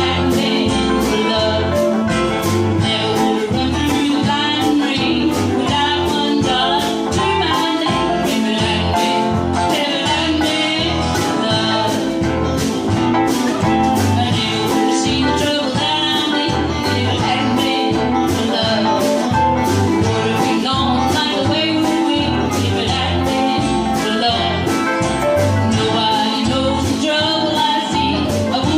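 Live band playing an upbeat country song, with guitar over a steady beat.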